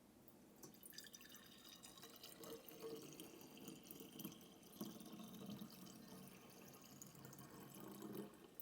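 Faint trickling and dripping of liquid as fruit-vinegar shrub is strained and poured.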